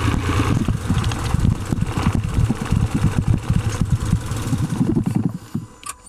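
Car engine running with an irregular rattling noise, taken as an abnormal noise from the gearbox. It cuts off near the end.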